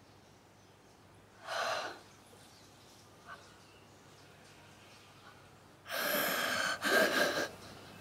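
A person's sharp breaths: one short breath about a second and a half in, then two louder gasping breaths near the end.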